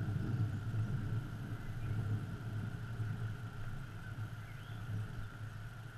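Thunder rolling in the distance: a low rumble that slowly fades away.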